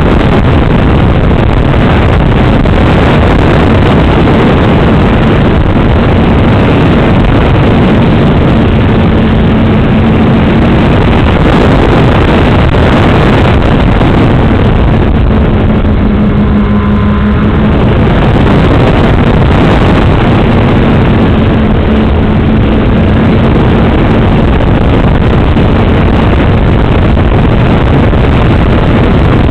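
Loud, steady rush of airflow and propeller-motor noise from a radio-controlled FPV model plane in flight, picked up by its small onboard camera's microphone. A low motor hum fades in and out a few times as the throttle changes.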